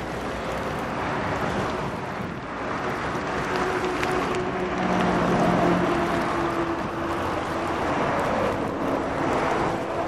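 Wind buffeting the microphone over a steady outdoor rumble, with a faint motor hum that strengthens around the middle.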